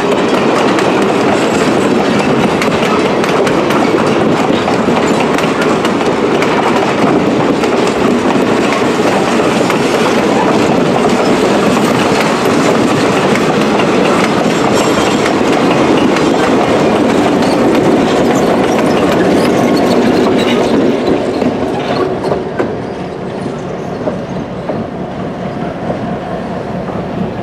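Passenger train cars rolling past, their wheels clicking over the rail joints. About 22 seconds in, the noise drops off as the end of the train passes.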